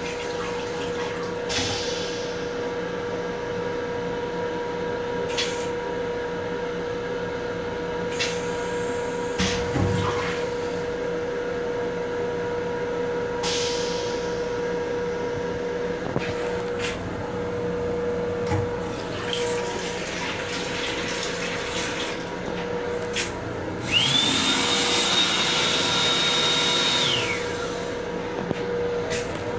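Rail-car toilet flush cycle: water runs steadily into a stainless steel bowl over a constant hum, with a few scattered clicks. About 24 s in, a loud high whine rises, holds for about three seconds and then drops away.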